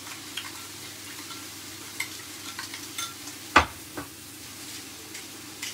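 Steak frying in a pan, a steady sizzle. A few light clicks come in the middle, then one sharp knock about three and a half seconds in, as the ceramic bowl of dip is set down on the wooden chopping board.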